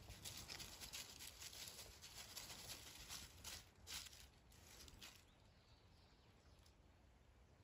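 Faint crackling and rustling of dry fallen leaves as a dog roots through them with its nose, dense with small crackles for about five seconds, then fading to a quiet hiss.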